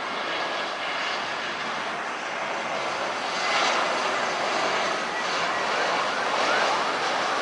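Passenger airliner engines running with a steady rushing noise that grows louder about three and a half seconds in.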